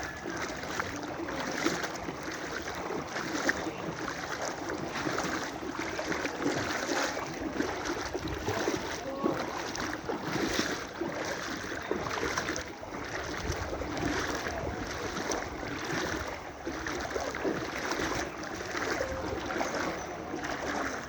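Floodwater sloshing and splashing, swelling and easing every second or two, with wind noise on the microphone.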